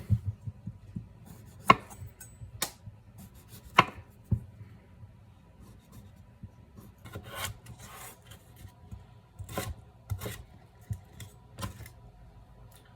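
Raw potatoes being prepared with a blade on a cutting board: irregular scraping strokes and sharp cutting knocks, roughly one every second or two.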